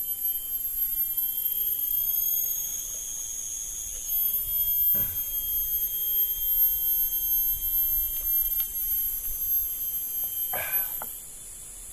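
Steady high-pitched drone of forest insects, several shrill tones held together and shifting a little. Two brief softer sounds come about five and ten and a half seconds in.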